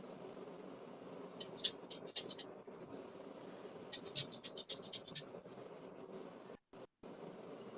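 Two short runs of quick, light clicks, about eight to ten a second, over a faint steady hum; the sound drops out completely for a moment near the end.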